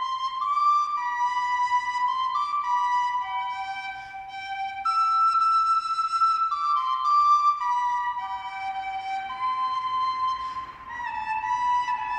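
Music: a slow melody of held notes on a flute, played as one line with short pauses between phrases.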